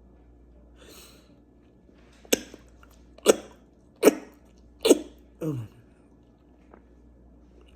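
A woman coughing hard four times in quick succession, about a second apart, after a faint breath, ending in a short sound that slides down in pitch. The coughing is set off by hot menthol vapor that has got down into her throat.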